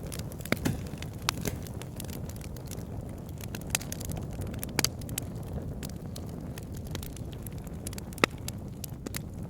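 Fireplace fire crackling: a steady low rustle of flames with irregular sharp pops and snaps, the loudest one near the end.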